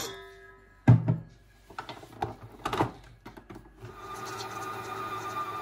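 Bowl and utensil knocks as chocolate chips are tipped into dough in a stand mixer's steel bowl: a clink with a short ring, a loud knock about a second in, then lighter clicks. From about four seconds the stand mixer's motor runs steadily, kneading the dough with its dough hook.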